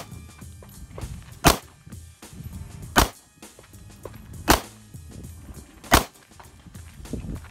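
Pistol firing single shots at a slow, steady pace, one about every second and a half.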